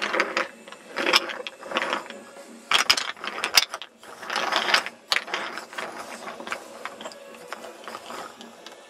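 Wooden toy train engine and coaches rolling along wooden track, the wheels clattering and clicking unevenly.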